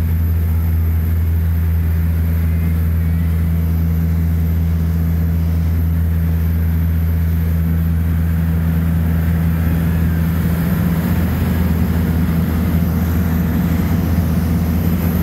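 Boat's engine running steadily at cruising speed, a deep even drone, with the rush of water and wake along the hull.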